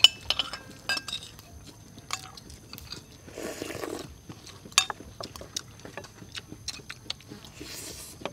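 Metal spoons clinking irregularly against plates and a metal serving tray, with a sharp clink right at the start, and chewing in between.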